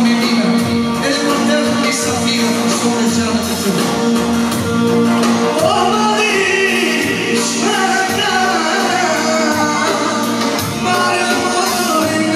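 Band music with singing over a steady beat: a long held note in the first half gives way to a winding melody.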